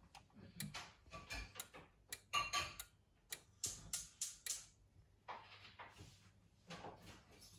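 Denon AVR-X4500H AV receiver clicking as it powers up after its power button is pressed: a dozen or more sharp, irregularly spaced clicks of its internal relays, the loudest about two and a half seconds in, thinning out toward the end.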